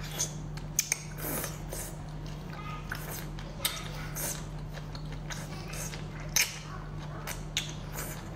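Wet slurping, sucking and chewing as long sauced octopus tentacles are drawn into the mouth, in irregular bursts, with a few sharp clicks.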